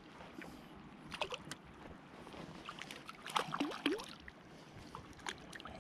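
A small hooked short-nosed tripodfish splashing at the water's surface as it is reeled in on a spinning reel, with light clicks and small splashes and a few brief squeaks about three and a half seconds in.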